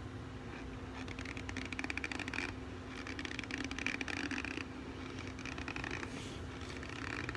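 Raw cornstarch crunching and squeaking in several short bursts, each about a second long, as it is squeezed in the fingers and chewed.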